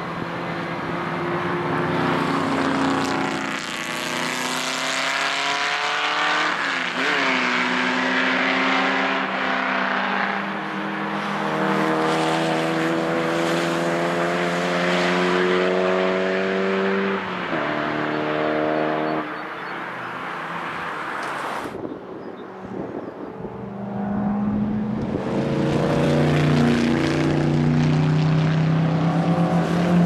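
Several racing car engines at full throttle on a circuit, overlapping as the cars follow one another. Their pitch rises steadily over long pulls and drops at a gearchange. Near the middle the sound cuts off abruptly, and another car's engine rises in.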